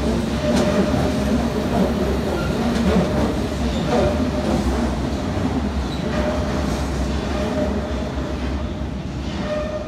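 London Underground S Stock train pulling out of the platform: a steady rumble of wheels on rail with a couple of sharp clicks. It fades over the last few seconds as the train draws away.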